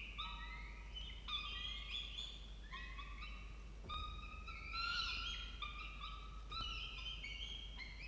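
Peregrine falcon chicks giving begging calls while an adult feeds them: many overlapping high, whining notes that slide and step in pitch.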